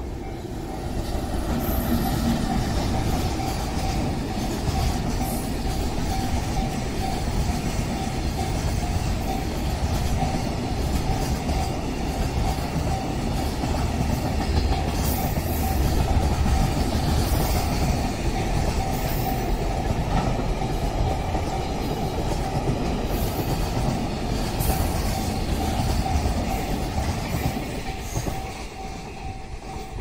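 JR Freight EF66 electric locomotive, No. EF66-125, hauling a long train of container wagons past a level crossing: a steady, heavy rumble that builds about a second in and fades near the end as the last wagons clear. A level-crossing warning bell rings on and on under it.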